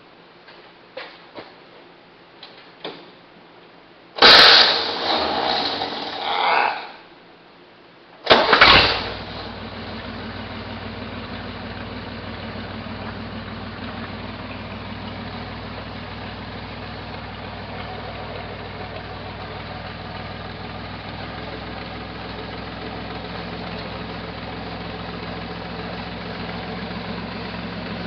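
Buick V6 in a 1968 Jeepster Commando being started: a first try about four seconds in cranks and runs briefly but does not keep going, then a second try about eight seconds in catches and settles into a steady idle. The engine has a misfire on one cylinder that has not yet been found.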